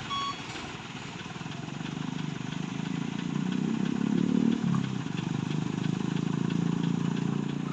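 A heavy cab-over truck's diesel engine idling, revved up briefly and back down about four seconds in. A single reversing beep sounds at the very start.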